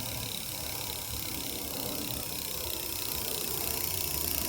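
An electric fat bike's 36-volt rear hub motor running steadily, driving the wheel under pedal assist.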